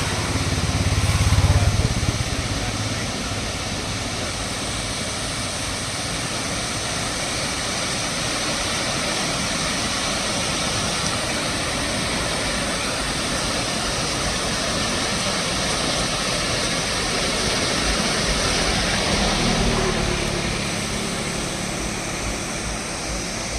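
Steady rushing noise throughout, with a vehicle's engine rumble swelling briefly about a second in and again, more faintly, near the end.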